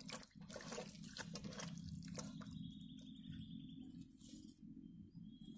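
Faint wet squelching and small splashes of raw mutton being rubbed and squeezed by hand in a steel plate of water. The sounds come thickest in the first two seconds, over a low steady hum.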